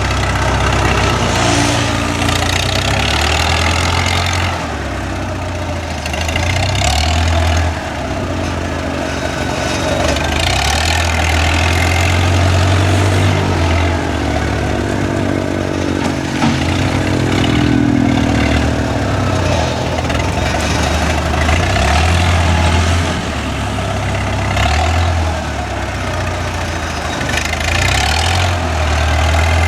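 Heavy diesel engine of earth-moving machinery running steadily with a deep hum. About halfway through, its pitch rises and falls as it revs.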